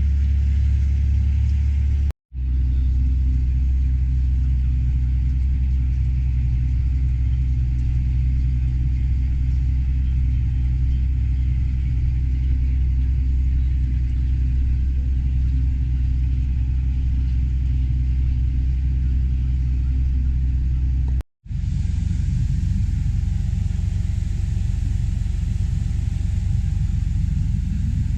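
Tractor engine running steadily under load while pulling a grain cart: a deep, even drone. It breaks off briefly twice, and after the second break, about three quarters of the way through, the rumble is coarser and hissier.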